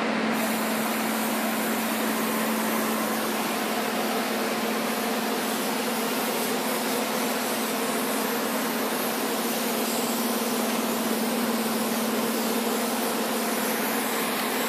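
A steady machine hum under a loud, even hiss; the hiss cuts off abruptly near the end while the hum goes on.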